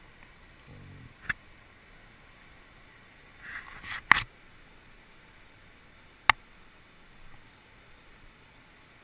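A few sharp clicks from climbing gear and rope being handled. The loudest comes about four seconds in, just after a brief rustle, and another follows about two seconds later.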